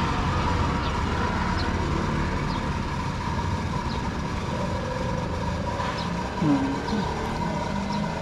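Coin-operated water refill station dispensing water into a jug: a steady rush of running water, with a steady high tone from the machine.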